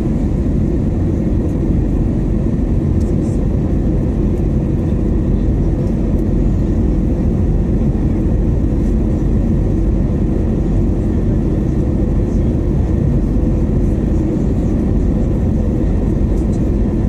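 Steady jet engine and airflow roar heard inside the passenger cabin of an Airbus A321neo in flight, loud and even, with most of its weight in the low end.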